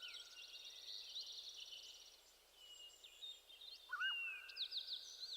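Faint birdsong: several birds chirping and trilling, with a louder rising whistled call about four seconds in.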